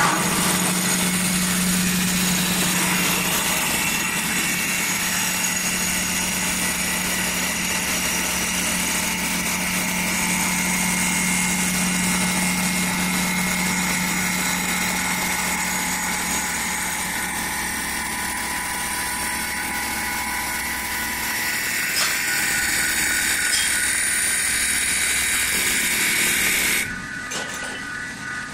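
CNC wood-turning lathe cutting a spinning wooden blank, a steady machine hum under the hiss and rasp of the cutter shaving wood. The sound drops off suddenly near the end.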